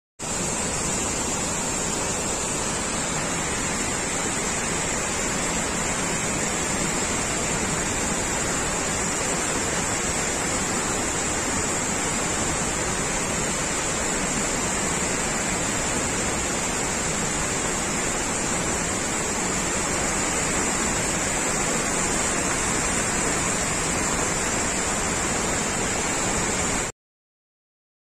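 Large waterfall crashing down a rock face onto a debris-strewn road: a loud, steady rush of falling water that cuts off abruptly about a second before the end.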